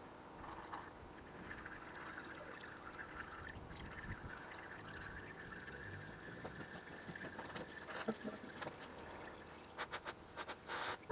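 Engine oil running in a steady stream, pouring and trickling, during an oil change. Near the end the stream gives way to a run of sharp clicks and knocks.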